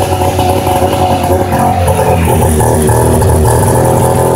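Arctic Cat Jag 440 snowmobile's two-stroke twin-cylinder engine running steadily.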